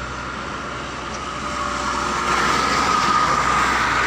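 Highway traffic passing: steady tyre and engine noise from a truck and a car on a toll road, with a faint steady whine, growing louder over the last couple of seconds as a vehicle comes closer.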